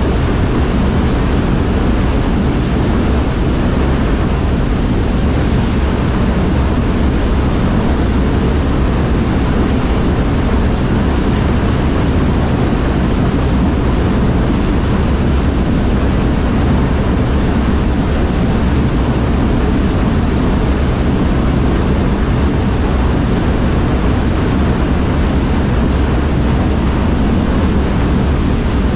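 Orbinox 60-inch fixed cone valve discharging water wide open in a full-flow test: a loud, steady rush of water spraying into a concrete chamber, deepest in the low end.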